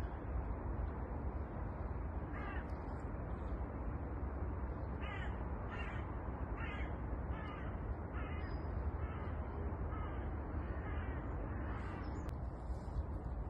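A crow cawing: one caw, then a run of about nine caws under a second apart that grow fainter, over a steady background rush.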